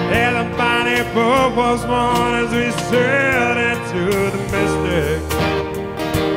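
Country-style music: a lead line sliding and wavering in pitch over a strummed guitar accompaniment.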